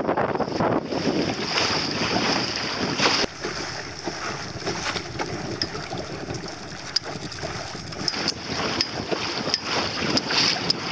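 Wind buffeting the microphone over the rush and splash of choppy water against a small sailboat's hull under sail. The sound eases a little about three seconds in.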